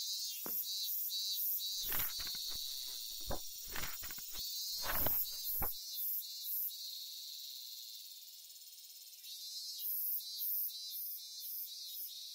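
A chorus of summer insects buzzing high and shrill, swelling three times into runs of rapid pulses at about three a second. In the first half it is mixed with a scatter of soft knocks and thumps.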